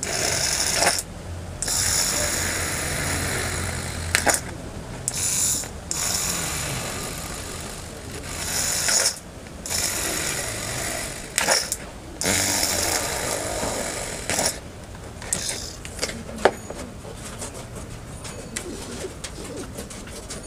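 Homemade mini drill, a small 12 V DC motor with a brass collet chuck and a fine bit, running in spells of a second or several seconds and stopping and starting several times as it drills small holes through a thin printed sheet. Sharp clicks come at the stops. For the last several seconds it is quieter, with scattered clicks.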